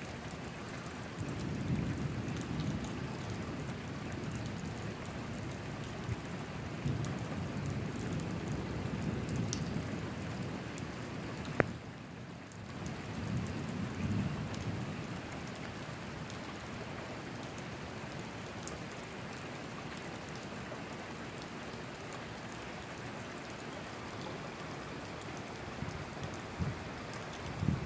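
Steady rain falling through a thunderstorm, with distant thunder rumbling low three times, and a single sharp click a little before halfway.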